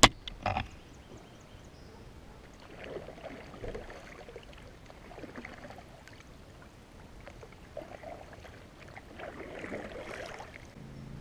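Double-bladed kayak paddle stroking through lily-pad-covered water: soft splashing swishes every second or two, with a longer one near the end. There is a light knock just after the start.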